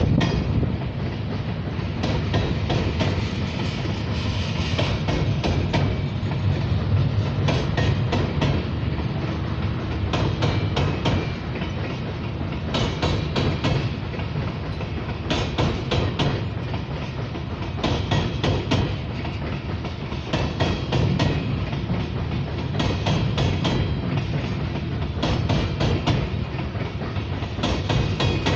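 Coal hopper cars of a long BNSF coal train rolling past on a steel girder bridge. A steady low rumble runs under repeated clusters of clicking and clattering as the wheels pass over the rail joints.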